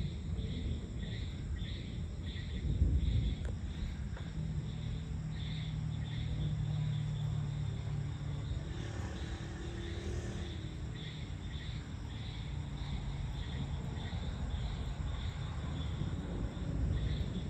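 Low rumble of distant thunder, swelling about three seconds in, under insects chirping in a steady pulsing rhythm of one or two chirps a second. A steady low hum runs underneath through the middle.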